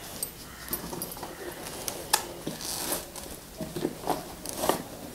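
Cloth drawstring helmet bag being loosened and pulled off a full-face motorcycle helmet: fabric rustling and scraping, with a few sharp clicks and knocks of handling, the loudest about two seconds in and near the end.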